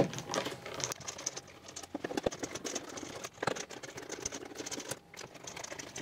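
Irregular clicks, taps and rustling of Dyson Airblade hand-dryer parts being handled and worked apart during disassembly, with a louder knock about three and a half seconds in.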